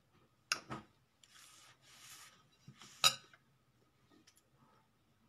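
A few sharp clicks or clinks of small hard objects: two close together about half a second in and a louder one about three seconds in, with two short hissing sounds between them.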